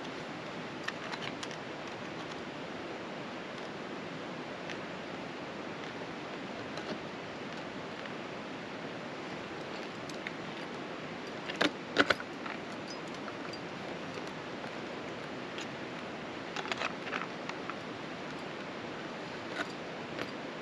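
Steel ice-tool picks and crampon points clicking and scraping on rock as a climber moves up. Scattered sharp metallic clicks come over a steady hiss, and the loudest pair comes about twelve seconds in.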